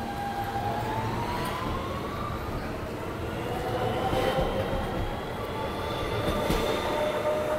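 R160 subway train pulling out and picking up speed, its traction motors whining in several tones that rise steadily in pitch over the rumble of the wheels. A couple of sharp wheel clacks come about four and six and a half seconds in.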